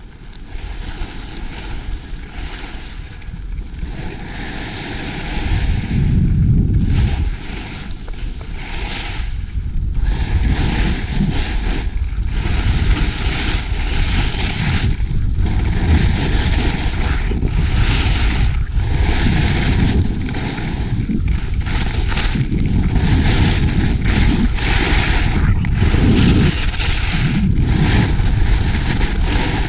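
Skis carving on snow, the scraping hiss of the edges swelling and fading every second or two with each turn. Wind buffets the camera microphone with a low rumble that grows louder over the first several seconds.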